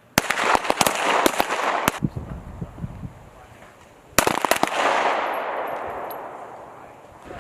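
Rapid, overlapping gunshots on a firing range for about two seconds, then a second short volley about four seconds in, each trailing off in a long echo.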